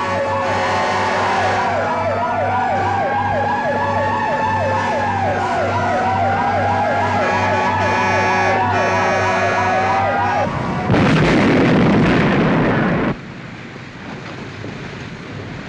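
Several fire-engine sirens sound together, one wailing slowly up and down and another yelping fast, about three sweeps a second, over a low pulsing engine drone. About eleven seconds in, a loud rushing blast of noise takes over for about two seconds and cuts off sharply, leaving a quieter rushing noise.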